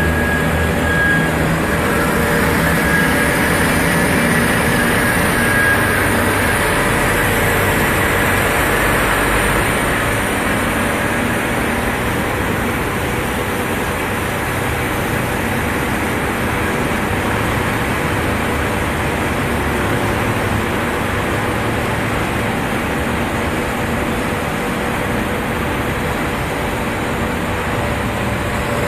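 Amada CRA-300 metal-cutting band saw running on test, a steady loud machine noise. A thin high tone in the first few seconds fades out, and the sound eases slightly after about ten seconds.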